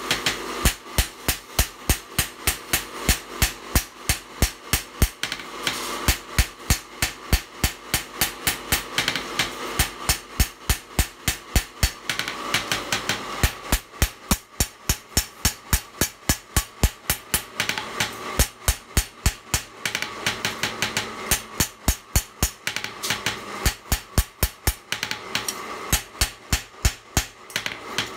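Hand hammer striking a gyuto knife blade on a steel post anvil: a steady run of sharp metal-on-metal blows, about three a second, broken by a few short pauses.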